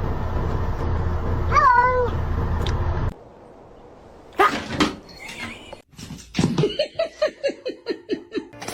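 A house cat meows once over a steady rushing noise. After a sudden cut, a cat makes a quick run of short, falling meows, about four a second, near the end.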